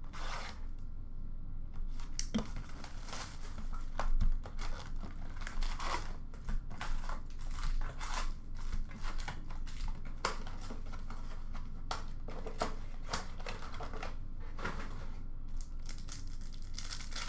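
A sealed box of Upper Deck hockey cards being torn open: wrapping crinkling and ripping, a long tear strip pulled off, and foil card packs rustling as they are handled. An irregular run of crackles and tears, loudest about four seconds in.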